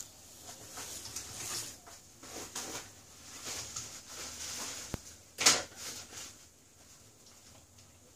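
Faint rustling and handling noises with small clicks, and a short, loud rush of noise about five and a half seconds in.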